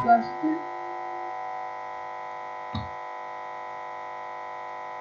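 Keygen chiptune music breaking off and leaving one steady electronic chord droning on unchanged, like a stuck note. A single click comes a little past halfway.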